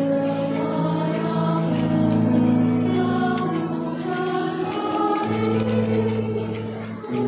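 Mixed choir of women's and men's voices singing held chords in several parts, the chord changing every second or two, with a brief break and a new chord about five seconds in.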